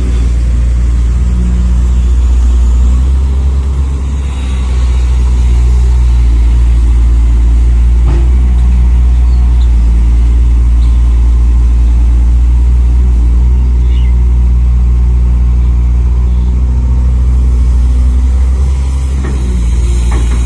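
Simulated diesel truck engine running steadily from a radio-controlled scale construction model's sound unit: a loud, deep, even hum, with a few faint clicks.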